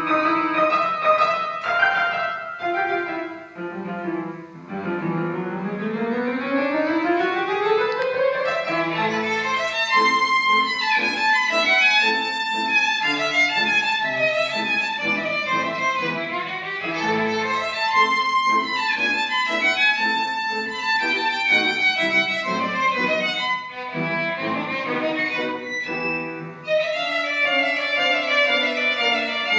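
Violin playing a lively classical piece with piano accompaniment, with quick successive notes and a long rising run about five seconds in.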